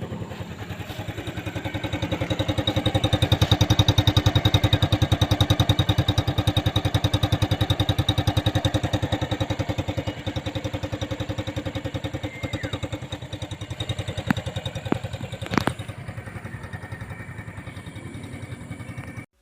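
Skygo Hero S125 motorcycle's 125 cc single-cylinder engine running steadily and smoothly, swelling louder for a few seconds near the start and then easing back. A single sharp click comes about three-quarters of the way through.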